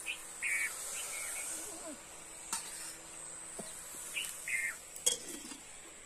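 Rural outdoor ambience: a steady high-pitched insect drone with short bird chirps near the start and again about four seconds in. A few sharp clicks or clinks occur, the loudest about five seconds in.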